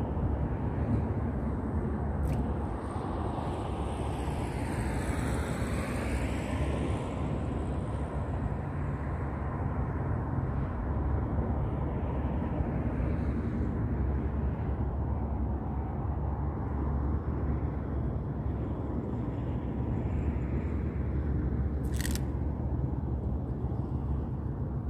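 Steady low rumble of road traffic in the open air, with a vehicle passing by about five seconds in. Two short clicks sound, one about two seconds in and one near the end.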